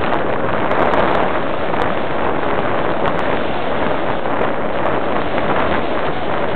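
Airstream rushing over the microphone of a key-fob camera riding on a Parkzone Radian RC glider in flight: a steady, loud wind rush with no motor whine standing out.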